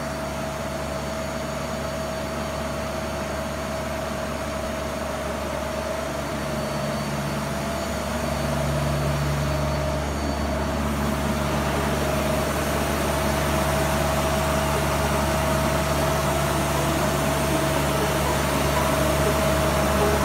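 Mazak INTEGREX 400 SY CNC multitasking lathe standing powered up, its electric hydraulic pump motor and cooling fans humming steadily with a constant whine. The hum gets a little louder about eight seconds in and again near the end.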